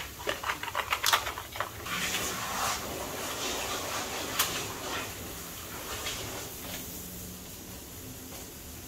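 Light clicks and knocks of aluminium extrusion framing and its hardware being handled. There is a quick run of clicks in the first couple of seconds, then rustling, and a single sharp click about four seconds in.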